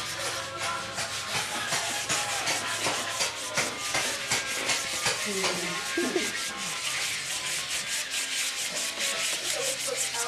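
Kisii soapstone carving being wet-sanded by hand: sandpaper rubbing over the stone in quick, rhythmic back-and-forth strokes, several a second. This is the fine-sanding stage that leaves soapstone smooth before polishing.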